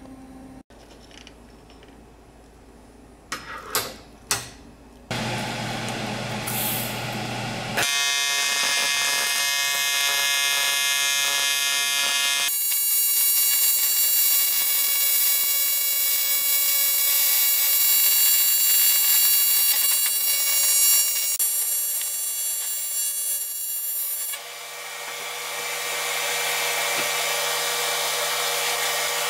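A TIG welder's arc buzzing steadily as it melts aluminum in a small steel box for casting. It follows a few quiet seconds with a few clicks, and near the end the buzz gives way to a steady hiss.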